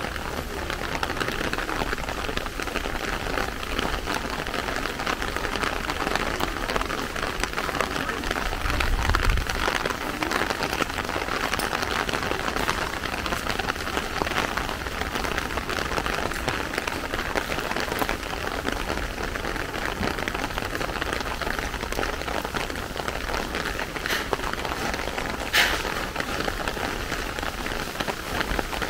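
Steady rain falling. A brief low thump comes about nine seconds in, and a single sharp tap near the end.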